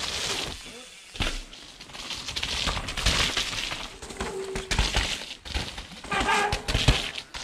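A downhill mountain bike passes close through mud, then heavy rain crackles and patters on the camera and its microphone, with irregular sharp knocks throughout. Faint distant voices come in near the end.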